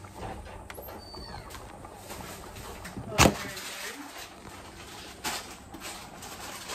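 A sharp knock about three seconds in, the loudest sound, and a lighter knock about two seconds later, over low steady background noise.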